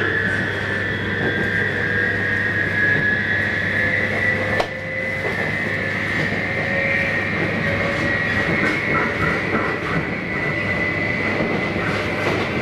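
JR East 719 series electric train running, heard from inside the car: a steady rumble with a high traction-motor whine that rises slowly in pitch, and one sharp knock about four and a half seconds in. This unit's motors sound different from a normal 719's.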